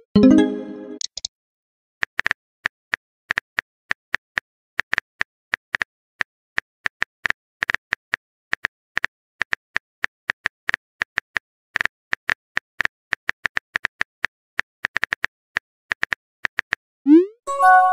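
Simulated phone keyboard typing: short, irregular key clicks, a few a second, as text is typed into a chat message box. A short rising pop with a pitched chime marks a message being sent, at the start and again near the end.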